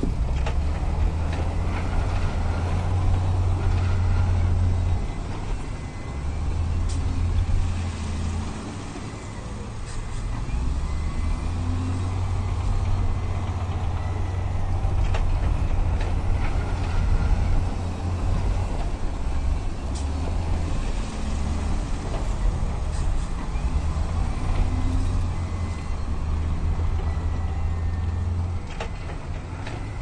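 Heavy diesel engines of dump trucks and a bulldozer running, a deep low rumble that swells and eases again and again.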